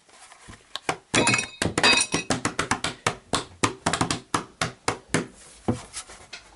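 Hard plastic motorcycle front mudguard, repaired with plastic welding and staples, being flexed and tapped by hand: a run of sharp, irregular knocks and clicks, several a second, from about a second in until near the end.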